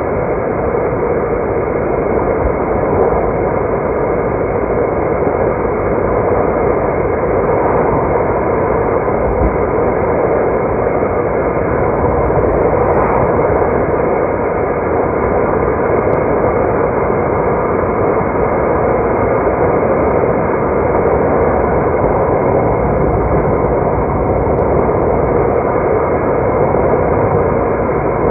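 Steady road noise of a car being driven: tyre and engine noise with no distinct events.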